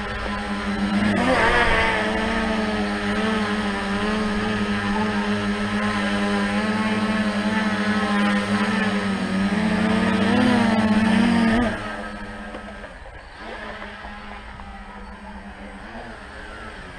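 A tricopter's three brushless motors and propellers running at a steady buzzing hum, the pitch wavering a little as the throttle shifts. The sound drops away sharply about twelve seconds in, leaving a quieter hum.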